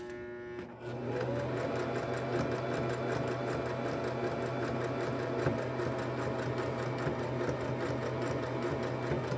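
Electric household sewing machine stitching through denim, starting up about a second in with a short rise in pitch and then running steadily. It is sewing a back-and-forth zigzag stitch to reinforce the fabric's edge.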